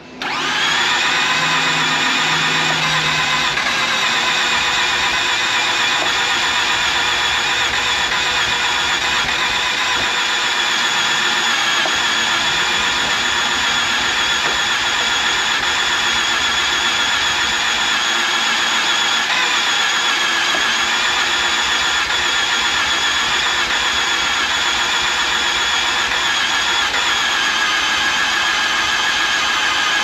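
Starter motor cranking the flooded, low-compression 1.3-litre rotary engine of a 2011 Mazda RX-8 in clear-flood mode: a steady, unbroken whine that goes on without the engine catching.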